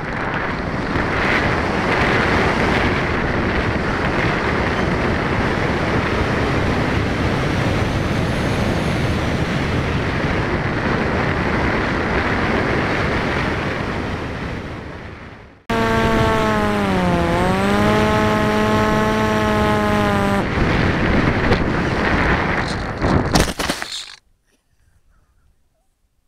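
Air rushing over the onboard camera of a Mini Arrow electric RC plane in flight, with the propeller motor running underneath. After a cut about sixteen seconds in, the motor's whine is plain, dipping in pitch and rising back. The noise stops suddenly near the end.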